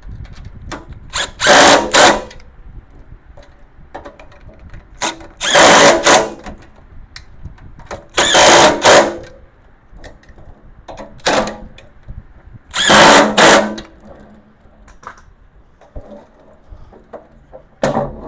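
Power drill running in about four one-second bursts with a few shorter blips between them, driving the bolts that fasten the tool cart's casters.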